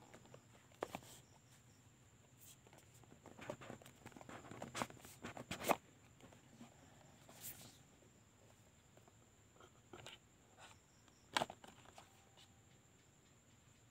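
Fingers handling a white cardboard smartphone box: faint scrapes, rubs and taps of skin on card, with a cluster of rubbing sounds a few seconds in and sharp taps near the middle and about three-quarters through, as the box lid is worked loose.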